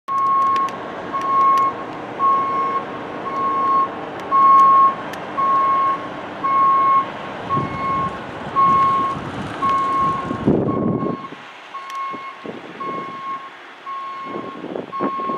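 A vehicle's reversing alarm beeping steadily, about two beeps a second, over the rumble of its engine. About ten seconds in a louder rush of noise comes, and then the engine sound drops away while the beeping goes on.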